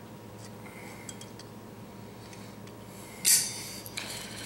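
Metal tools handled: a short, loud metallic clank about three seconds in as two pairs of locking pliers clamped on a steel washer knock together, with a few faint clicks before and after.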